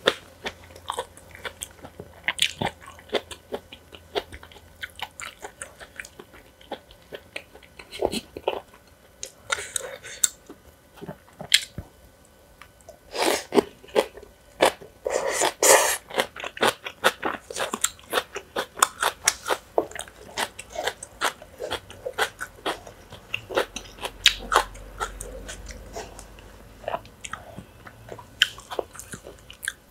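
A person eating close to the microphone: rapid crunching and chewing with many sharp clicks, busier and louder from about halfway through.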